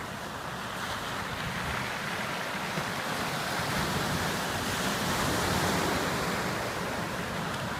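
Sea surf breaking on a beach: a steady wash of waves that swells a little past the middle and eases near the end.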